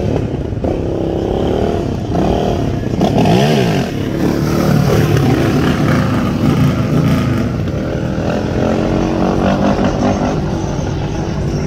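Sport quad (ATV) engine revving as it accelerates past in a wheelie, its pitch climbing and falling with the throttle.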